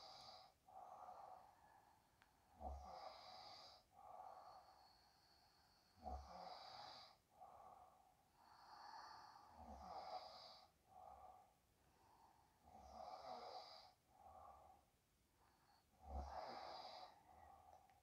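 Faint snoring and heavy sleep breathing, one breath about every three and a half seconds, each starting with a short low rumble.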